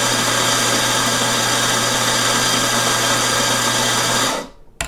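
Eureka Zenith 65E high-speed espresso grinder, with its 510-watt motor and 65 mm flat steel burrs, grinding a dose of coffee into a portafilter: a steady motor hum and whirr of beans being ground. It cuts off near the end.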